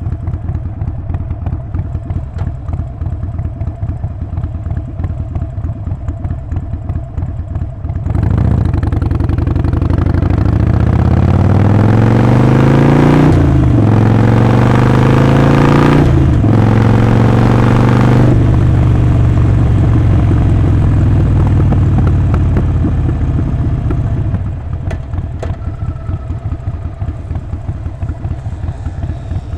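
Harley-Davidson Sportster Forty-Eight's 1200 cc air-cooled V-twin running at low revs with its uneven, loping beat. About eight seconds in it pulls away hard, the exhaust note rising through the gears with two brief dips at the upshifts. It holds a steady cruise, then eases back to the low loping beat a few seconds before the end.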